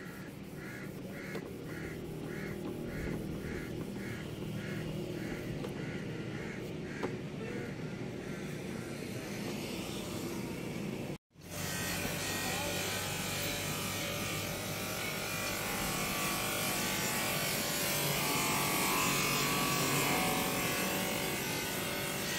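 Pedestal bench buffer running, its cloth buffing wheel pressed against a plastic car headlight lens to polish it: a steady motor hum under the rushing of the wheel on the lens. Before it starts, about halfway through, there is a quieter stretch with a faint chirp repeating about twice a second.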